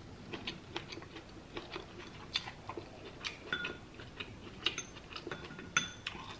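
A person chewing a mouthful of a soft, spicy coconut-turmeric vegetable dish, making irregular wet mouth clicks and smacks.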